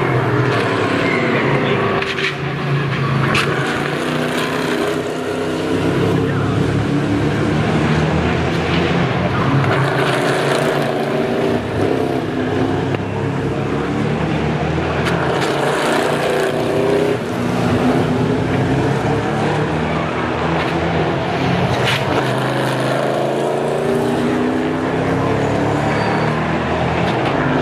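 Several Whelen NASCAR Euro Series stock cars racing past, their V8 engines rising and falling in pitch as they brake, shift and accelerate through a corner.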